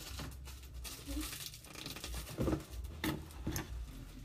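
Rustling and crinkling with irregular light clicks as small items are handled close to the microphone.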